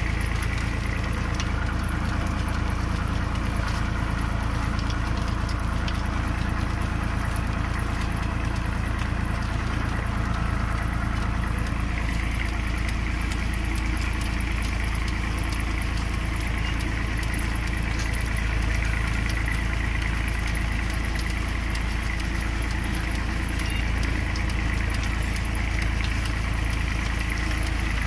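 Tractor engine running steadily, with light rattling over it.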